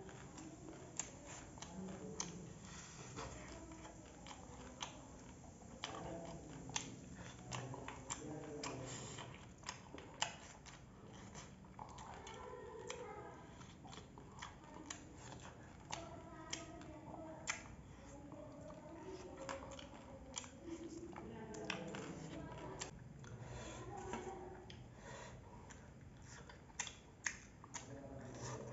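Eating by hand: fingers mixing rice and curry on a steel plate, with scattered sharp clicks and taps and chewing.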